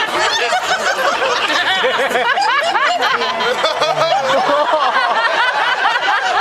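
A large audience laughing, many voices at once.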